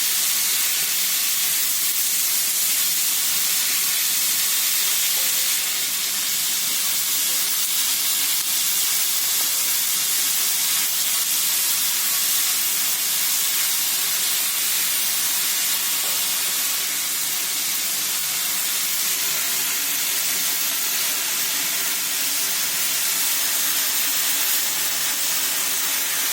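Chopped onion sizzling steadily in hot oil on a tava, being sautéed toward golden brown. A faint steady hum runs underneath.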